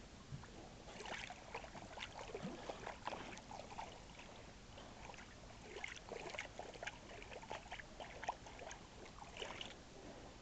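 Faint lapping and trickling of calm water against a canoe hull, with many short scattered clicks and squeaks.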